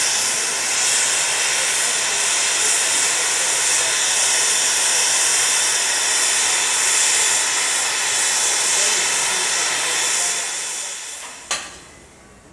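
Steady, loud hiss of steam escaping from a 1932 Hunslet steam locomotive standing still. The hiss fades and cuts off with a short click about eleven and a half seconds in, leaving a much quieter background.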